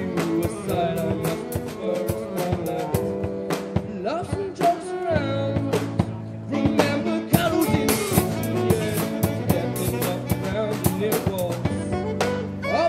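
Saxophone playing the lead melody over a drum kit's steady beat and electric keyboard chords, after the singing stops.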